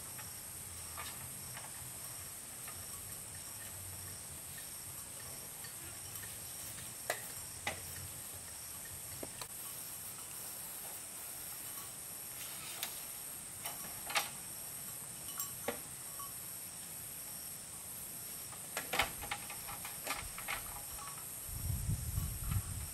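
Steady high-pitched insect chorus, crickets or similar, with scattered light knocks and clicks every few seconds and a brief low rumble near the end.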